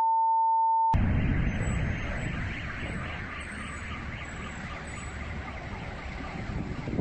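A single steady beep tone lasting about a second, then the rumbling noise of a fuel filling-station explosion fireball, which starts abruptly and slowly fades.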